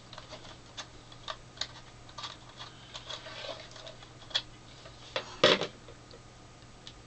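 Light clicks and ticks of a small screwdriver and the plastic case of a 7-inch portable LCD TV being worked on and handled, with a louder clatter about five and a half seconds in.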